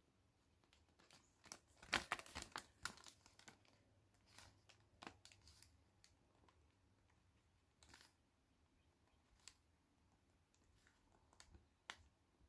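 Near silence broken by faint rustling and light clicks of small craft items being handled, with a brief cluster about two seconds in and a few isolated ticks later.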